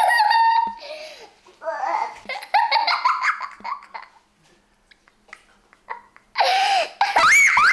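Children laughing: a young boy laughing hard in bursts, with a baby babbling and giggling, and a quiet gap about four to six seconds in.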